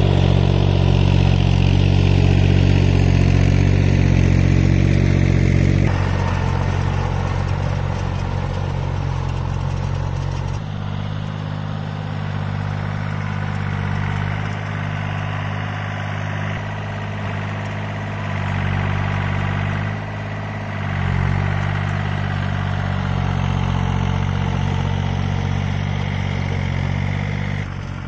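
Yanmar compact diesel tractor engine running steadily under load as it drives a rear rotary tiller through the field. The sound is loudest over the first six seconds, then changes abruptly twice and runs on at a lower level.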